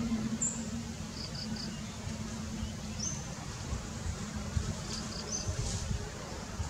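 A steady low buzz, as of a flying insect, with a few short high chirps and, twice, a quick run of three high notes.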